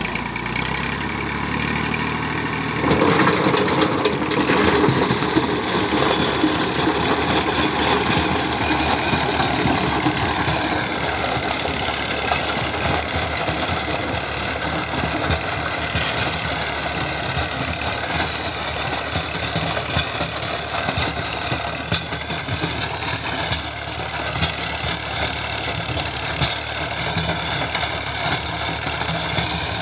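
Massey Ferguson 240 tractor's three-cylinder diesel engine running steadily under load while it drives a rotavator through dry, cloddy soil. The sound gets louder about three seconds in.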